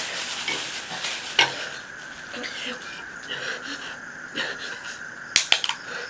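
Black plastic carrier bag rustling and crinkling as it is handled, then the pull tab of a drink can cracking open with two sharp clicks close together near the end.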